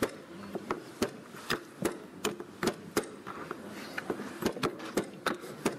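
Rapid clacks of wooden chess pieces set down on the board and the chess clock's buttons slapped, about three sharp clicks a second: a bullet blitz game played at around two moves a second.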